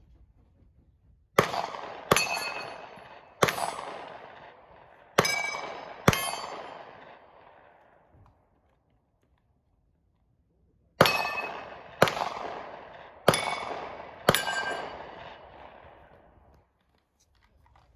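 Nine gunshots from a long gun in two quick strings, five and then four after a pause of a few seconds. Each shot is followed by a ringing, clanging tail, typical of rounds striking steel targets.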